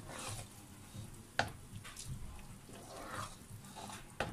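Wooden spatula stirring thick chili-garlic paste frying in oil in a saucepan: soft scraping over a faint sizzle, with a sharp knock of the spatula against the pan about a second and a half in and another near the end.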